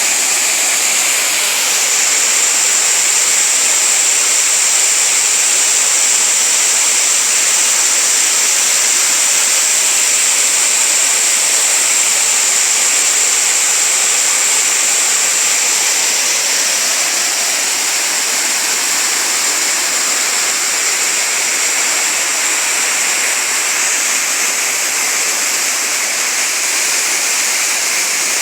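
Small waterfall pouring into a rocky stream, a steady rushing hiss of falling and running water.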